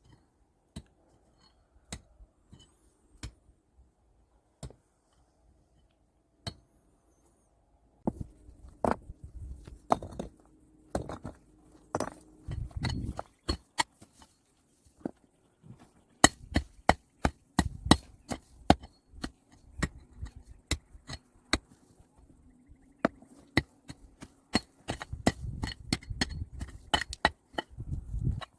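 Irregular sharp knocks and clicks of hand work, a few scattered ones at first, then from about eight seconds in a dense, fast run of strikes with some duller low thuds.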